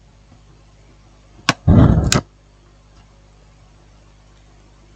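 Phone being handled on a workbench: one sharp click about one and a half seconds in, followed at once by a short, loud muffled rustle, over a low steady hum.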